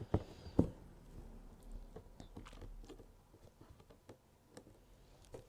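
Embroidery needle punching through taut fabric and crewel wool being drawn through: small crisp taps and soft scratchy rustles, with two sharper taps about half a second apart near the start.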